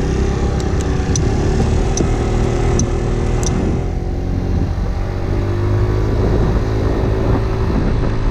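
Scooter engine running steadily, with several sharp clicks in the first few seconds.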